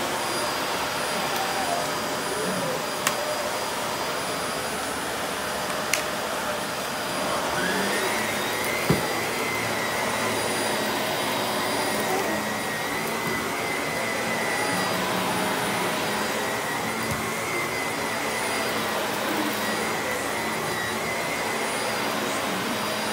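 Vacuum cleaner running steadily over carpet. About seven seconds in, its motor whine rises to a higher pitch and holds there. Three sharp clicks come a few seconds apart in the first half.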